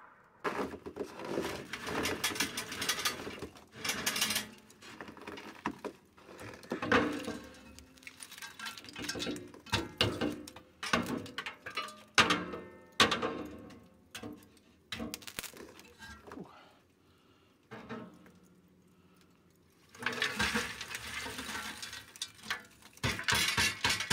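Metal charcoal chimney starter knocking and scraping against a drum smoker's grate, with burning charcoal rattling inside it. Near the end comes a long run of clattering as the lit coals are tipped out and tumble onto the coal tray.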